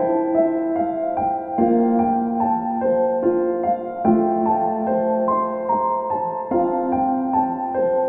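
Slow, gentle ambient piano music: single notes changing about every half second over held lower notes.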